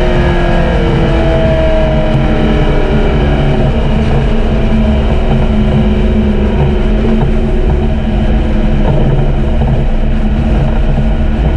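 2012 McLaren MP4-12C's twin-turbo V8 through its factory sport exhaust, running loudly; its engine note falls in pitch over the first few seconds, then holds fairly steady.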